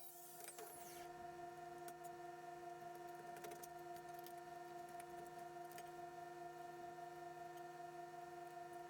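Faint steady pitched hum, a few tones held at an even pitch, with scattered soft clicks.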